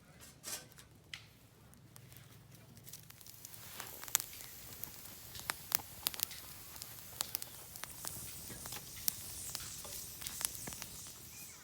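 Wood campfire crackling: a hiss that builds up about a third of the way in, with many sharp, irregular pops.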